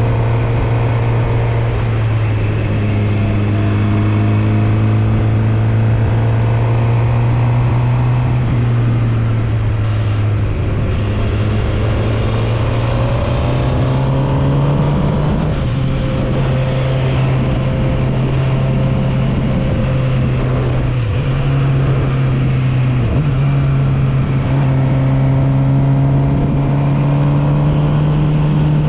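Suzuki GSX-R750 inline-four motorcycle engine running under way at moderate revs, its pitch drifting slowly up and down with the throttle, with several brief dips in pitch.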